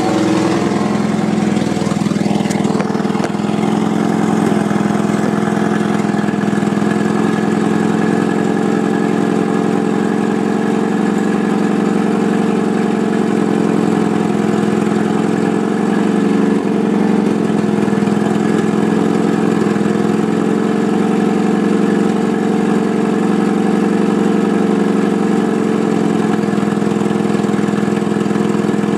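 Honda CRX Si's four-cylinder engine idling steadily with the hood open, on its first start-up.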